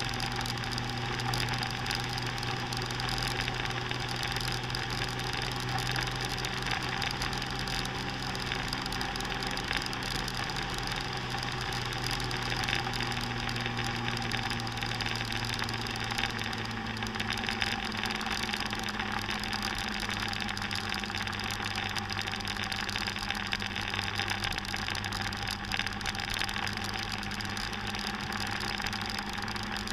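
Scooter engine running steadily at cruising speed, its pitch settling slightly lower about halfway through.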